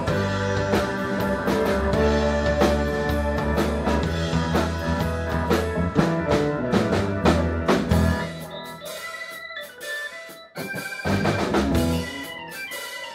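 Live blues band playing an instrumental passage: electric guitar, keyboard, bass guitar and drum kit. About eight seconds in the bass and full band drop out to a sparser break of scattered hits, with a brief full-band return shortly before the end.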